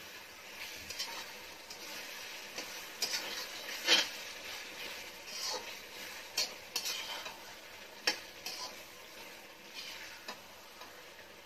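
Metal spatula stirring mutton liver in thick, sizzling gravy in a metal kadai, knocking and scraping against the pan at irregular moments; the loudest knock comes about four seconds in.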